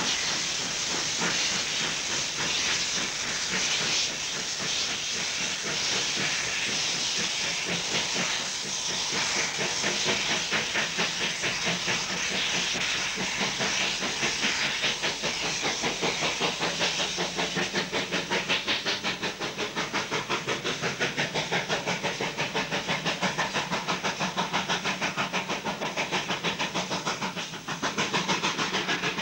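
Two coupled South African Railways steam locomotives working with their cylinder cocks open: a steady hiss of escaping steam, with a rhythmic chuffing of exhaust beats, about three to four a second, setting in about ten seconds in.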